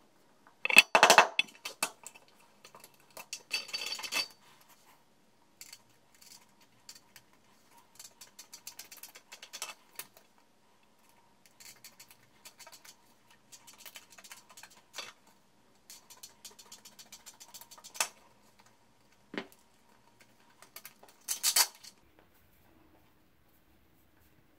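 Hand tools working thin sheet stock. A burst of sharp knocks about a second in fits a mallet and chisel. Runs of quick clicking cuts from aviation tin snips fill the middle, and a loud clatter comes near the end.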